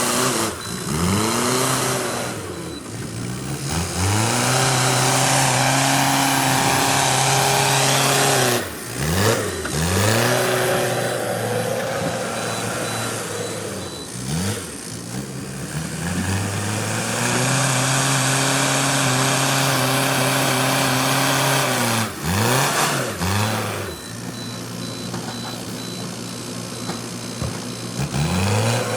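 Backhoe loader's diesel engine revving up under load, holding high revs for several seconds at a time and dropping back toward idle about five times.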